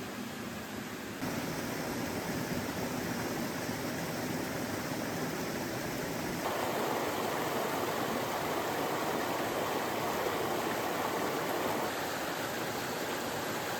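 A mountain stream running: a steady rush of flowing water. It gets abruptly louder about a second in and fuller about midway, then drops back somewhat near the end.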